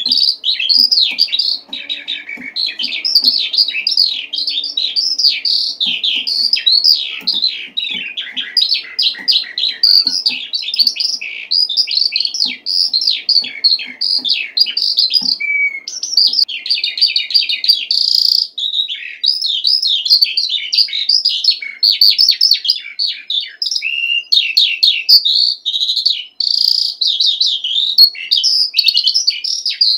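Eurasian skylark singing its long, continuous song: a fast, unbroken stream of high trills, chirps and warbles with no pause.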